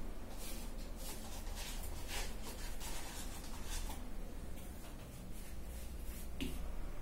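Wide paintbrush stroking primer onto fabric stretched on a frame: a run of quick, scratchy brushing strokes, two or three a second, then a pause and one more stroke near the end.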